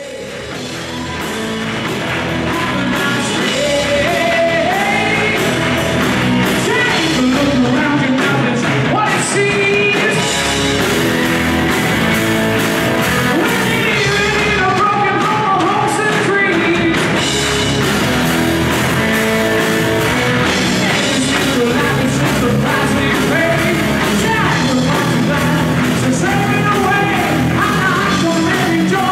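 Live rock band playing, with electric guitars, bass guitar, drums and keyboard. The music fades in over the first few seconds, then runs on at full level.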